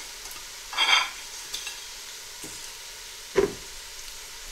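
Onion and spice masala frying in a stainless steel pot, a steady low sizzle. Two short, louder clatters break it, one about a second in and one a little after three seconds.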